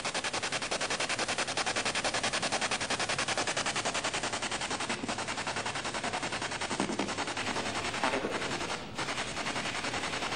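Ghost-hunting spirit box sweeping through radio stations: a rapid, even stutter of static bursts, many a second, with a brief dip in the chatter near the end.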